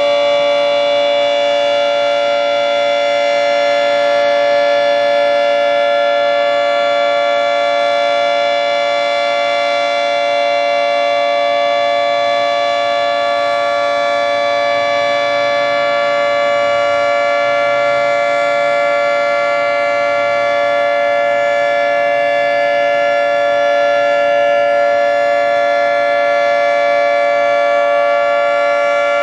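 Federal Signal 3T22 three-tone electromechanical outdoor warning siren sounding a steady chord at full speed: the Full Alert signal of a routine siren test. The pitch holds level while the loudness swells and fades slightly.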